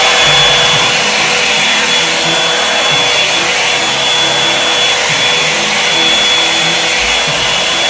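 Hot air brush (a round-brush hair dryer) running steadily on high, a loud rush of air with a thin high motor whine, blowing at the hairline to set the wig glue.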